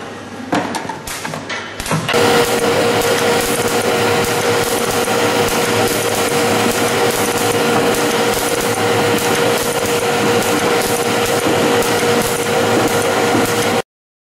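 In-line leak tester for plastic containers running on its conveyor line: light clicks and knocks for about two seconds, then a loud, steady machine clatter with a constant hum. It cuts off suddenly near the end.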